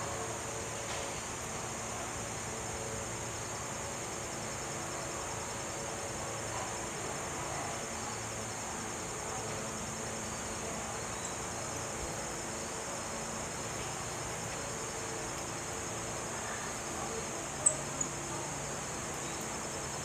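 Steady high-pitched chorus of crickets trilling with an even, fast pulse. Two short, sharp high chips stand out near the end.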